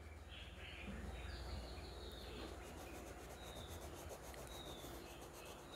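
Faint rubbing of an oil pastel being scribbled across drawing paper, over a steady low hum.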